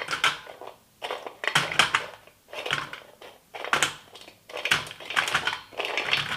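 Hard, crisp pieces of peanut-and-jaggery chikki sliding off one steel plate and clattering onto another in repeated bursts of rattling clicks, about one burst a second. The dry, brittle rattle shows the chikki has set crisp and crunchy, not soft or sticky.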